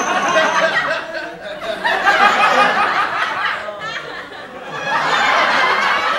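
Sitcom laugh track: a studio audience laughing in waves. It swells three times, near the start, around the middle and again near the end.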